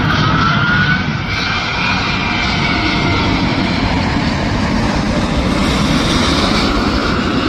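Airbus A380's four Rolls-Royce Trent 900 turbofans at approach power, passing low overhead on final approach with gear down: loud, steady jet noise with a deep rumble and a high whine that drifts in pitch during the first few seconds.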